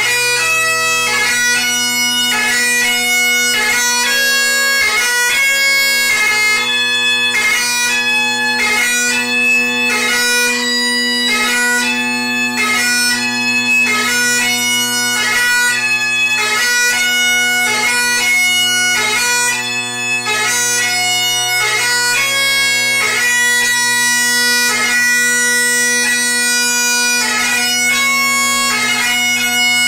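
Great Highland bagpipe played solo: the drones hold one steady low note beneath the chanter's melody, which moves from note to note with quick grace-note flourishes and never stops.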